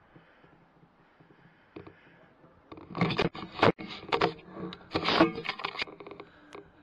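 Scraping and rustling handling noise on a rifle scope's built-in microphone: a run of rough, irregular strokes from about three seconds in until nearly six seconds, loud against the quiet before it, as the scoped rifle is shifted.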